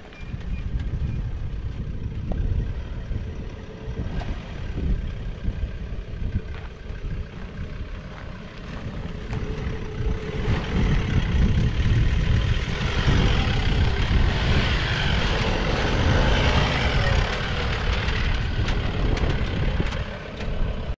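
Four-wheel-drive ute's engine working as it crawls over rough rock and dirt up out of a dry creek bed, getting louder from about halfway as it comes up close and passes.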